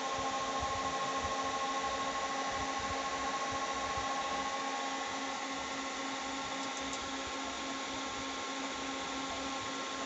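Cooling fan of a Soundstandard CA20 power amplifier running steadily just after power-on: an even whir with a faint high whine.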